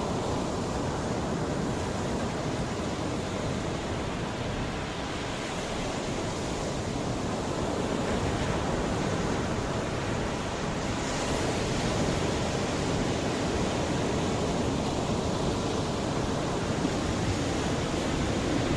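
Mediterranean sea waves washing onto the shore in a steady, continuous rush, swelling a little about a third of the way in and again past the middle.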